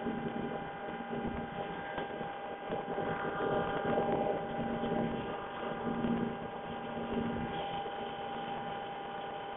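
CNC machine running: a steady motor whine with several fixed tones, and a lower hum that comes and goes every second or so as the axes move.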